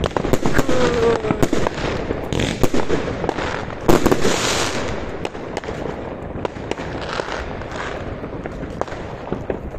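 Fireworks going off: a rapid run of bangs and crackling, loudest about four seconds in, then thinning out.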